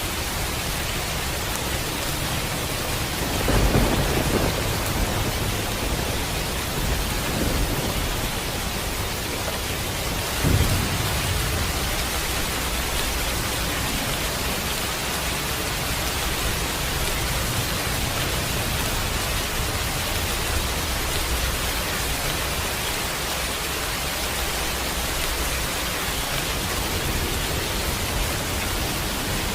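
Steady rain with thunder: a rumbling thunderclap about three seconds in that lasts a couple of seconds, and a second, shorter rumble about ten seconds in, then rain alone.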